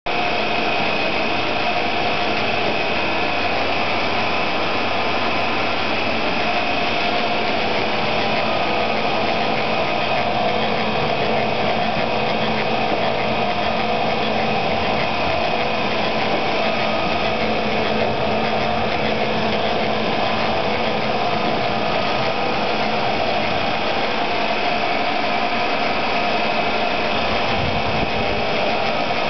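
Machinery running steadily: a constant mechanical hum with several steady tones and no change in speed or load.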